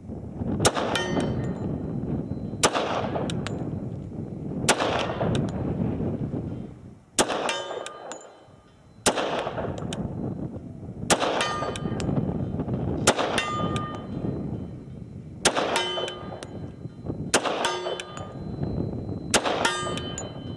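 A magazine of slow aimed shots from an H&K Mark 23 .45 ACP pistol, about ten shots roughly two seconds apart, each with a long echoing tail. Several shots are followed by a metallic ringing.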